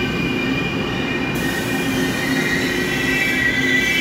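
Push-pull Tze-Chiang express coaches rolling past on the rails: a steady rumble of wheels with a high whine held throughout.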